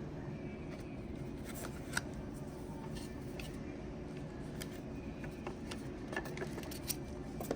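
Light clicks and taps of a lighter's presentation box and packaging being handled and opened, over a steady low background hum.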